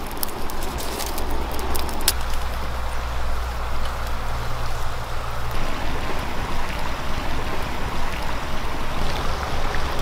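Open wood fire burning with occasional sharp crackles, over the steady rush of a flowing stream. A low rumble underneath drops away about halfway through.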